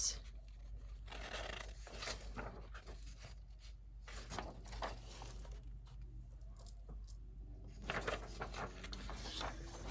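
Paper rustling as the pages of a printed booklet are handled and turned, in soft, scattered strokes.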